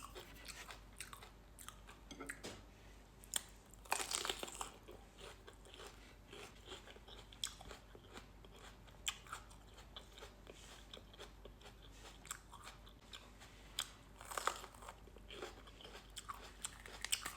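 A person biting and chewing crunchy food: a scatter of irregular crunches and mouth clicks, with louder bites about four seconds in and again a few seconds before the end.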